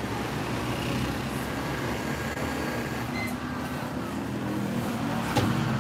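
Steady road traffic noise from passing vehicles, with a short high beep about three seconds in and a sharp click near the end.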